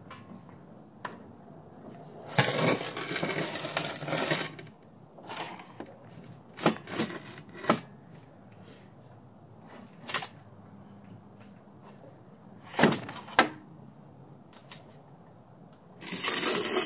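Square steel tubing being slid and shifted on a steel work table. There is a scrape lasting about two seconds early on, then several sharp metal clanks and knocks, and another short scraping rattle near the end.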